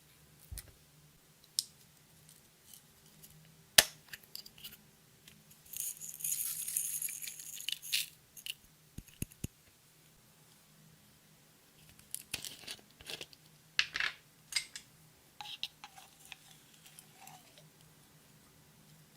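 Scattered clicks and taps from handling small makeup and glitter containers, with a sharp knock about four seconds in and about two seconds of rattling shortly after.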